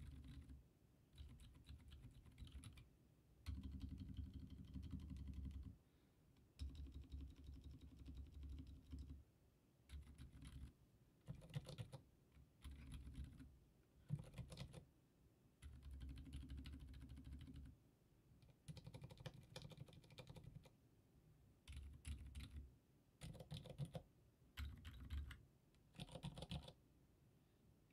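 Typing on plastic-cased mechanical keyboards fitted with silent tactile switches, Kailh Box Silent Browns and Boba U4s: quiet, damped keystrokes in bursts of one to three seconds with short pauses between.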